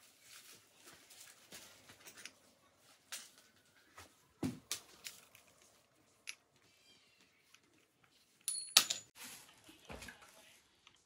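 Scattered clicks, taps and light knocks of hands fitting parts at a mountain bike's handlebar and stem, with a sharper metallic clink that rings briefly about nine seconds in.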